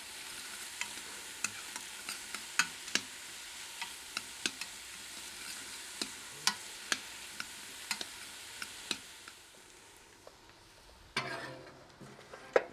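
Diced onions and green peppers sizzling in oil in an Instant Pot's stainless steel inner pot on sauté while being stirred, a steady hiss broken by many sharp ticks. The sizzle fades after about nine seconds, and a louder burst of sound comes near the end.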